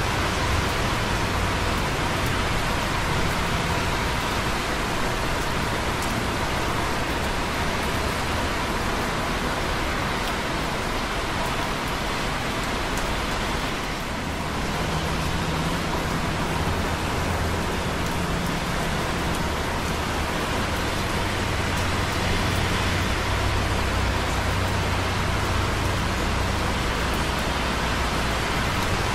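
Light rain dripping on concrete close by, over the steady hiss and rumble of busy traffic on wet roads below. The traffic rumble grows heavier about halfway through.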